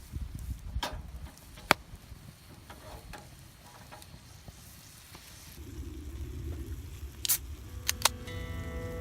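Wood fire crackling, with a few sharp pops over a low rumble. Acoustic guitar music comes in near the end.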